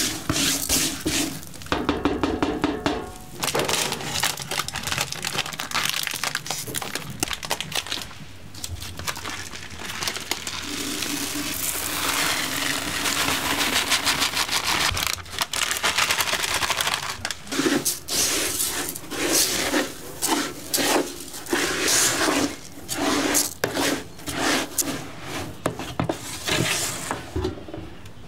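Vermicelli toasting in hot oil in a pot for rice pilaf, sizzling and crackling as a spoon stirs and scrapes through it. About halfway through, dry rice is poured in with a long rushing hiss, followed by a series of short scraping strokes as the mix is stirred.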